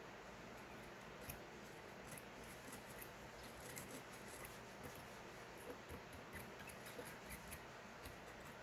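Faint, irregular small clicks and scratches over a steady low hiss, the sound of light handling work.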